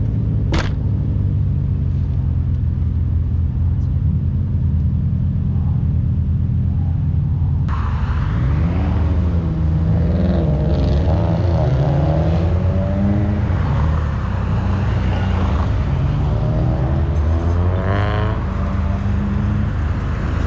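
Car engine running with a deep, steady low rumble, a single sharp click just after the start, and indistinct voices over it from about eight seconds in.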